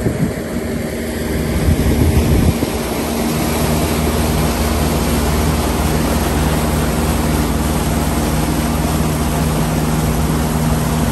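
Motorboat engine running steadily under way, a low drone, over the rush of the boat's wake and wind buffeting the microphone; the rush is loudest in a gust about two seconds in.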